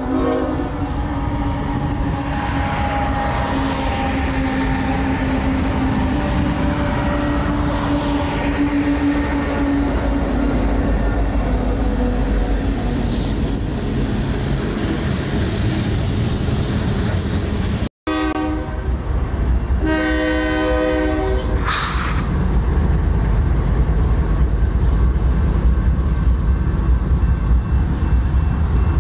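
Diesel freight locomotives sound a multi-note air horn as they approach, then freight cars roll past with a steady heavy rumble. After a cut, a second train gives two horn blasts, a short one and then a longer one, and its cars pass with a louder rumble.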